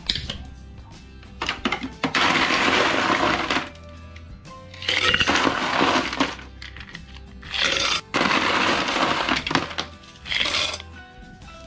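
A plastic scoop digs into ice cubes in a refrigerator's ice-maker drawer, and the cubes clatter into a stainless steel tumbler, scoop after scoop, in several loud rattling bursts over background music.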